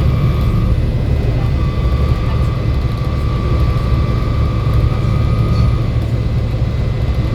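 Volvo B7 bus running along: a steady low engine drone with a thin high whine above it, which drops out briefly about a second in and again near six seconds.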